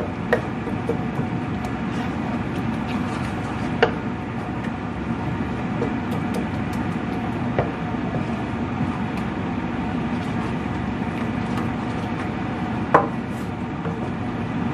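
Wooden spatula stirring and scraping a thick yogurt-and-masala mix around a nonstick frying pan, with a few sharp knocks of the spatula against the pan, the loudest near the end, over a steady noise underneath.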